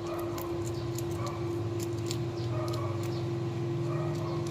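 Kittens crunching and chewing shrimp shells: irregular sharp crackly clicks. Underneath are a steady low hum and a low rumble that grows about a second in.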